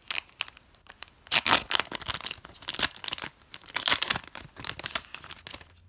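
Hockey card pack wrapper being torn open and crinkled by hand: a run of irregular rips and crackles that dies away shortly before the end.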